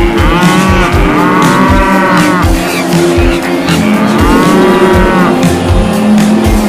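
Cartoon cow sound effect: two long moos, about a second in and again near four seconds, each rising then falling in pitch. Background music with a steady beat runs underneath.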